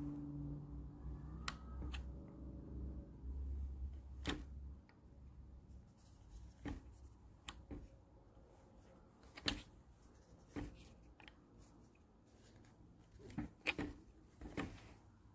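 Faint, irregular metallic clicks and taps of a twist-throttle slide and cable end being worked back and forth on a 1972 Honda CL70's handlebar, about a dozen in all. A low steady hum runs under the first four seconds or so, then stops.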